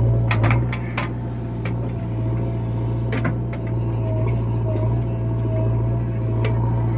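JCB digger's diesel engine running at a steady speed with a low drone, with a few sharp clicks and knocks over it, most about half a second in and around three seconds in.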